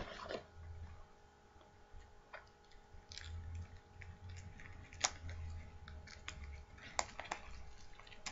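Scattered light clicks and taps of a cardboard trading-card box being handled, over a faint steady hum, with two sharper clicks about five and seven seconds in.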